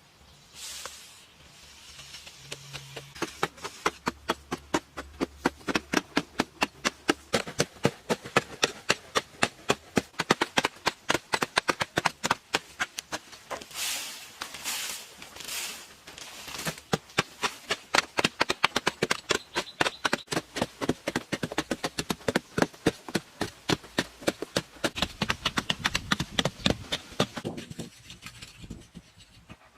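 Rapid, evenly repeated knocks or strikes, a few a second, easing off briefly midway and stopping near the end.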